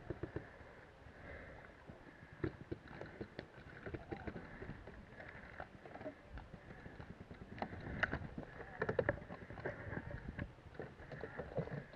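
Irregular knocks, clicks and rustling from a paintball player's gear and footsteps on grass as he moves between cover, over a faint steady high hiss.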